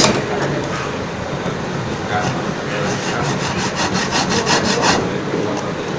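Hand backsaw cutting a wooden block, rasping back and forth in quick, even strokes that become about five a second in the second half. There is a sharp knock at the very start.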